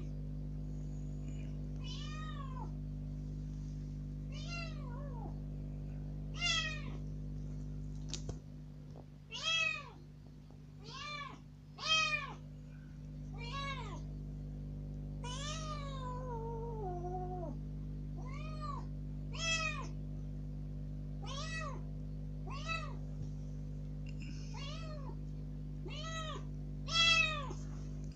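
Young kitten meowing loudly and over and over, one high arched cry every second or two, with one longer call about halfway through that falls in pitch. These are plaintive demand cries from a kitten that wants to be let outside.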